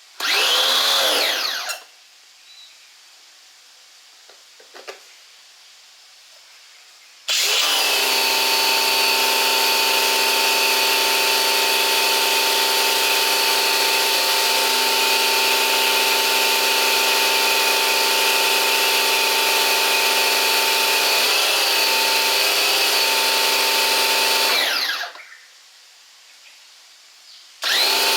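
Bosch Aquatak electric pressure washer's motor and pump. It runs briefly at the start and stops, its pitch falling as it winds down. About seven seconds in it starts again and runs steadily with a loud whine for about seventeen seconds, winds down, and starts up once more just before the end.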